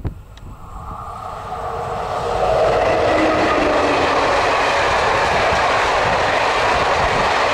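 Czech class 363 electric locomotive and its passenger coaches passing close by: the rumble of the train builds over the first two seconds or so, then the coaches' wheels roll past on the rails steadily and loudly.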